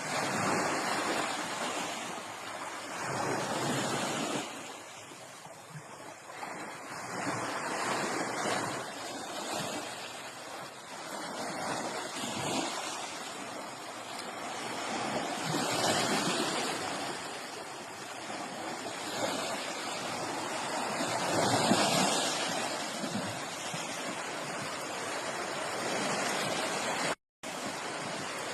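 Sea waves washing in and out, swelling and fading every few seconds. The sound cuts out for a moment near the end.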